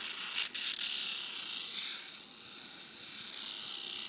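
Small 12-volt DC motor spinning an abrasive grinding wheel as the edge of a perforated circuit board is pressed against it: a steady high grinding whine, rougher and more uneven in the first second or two.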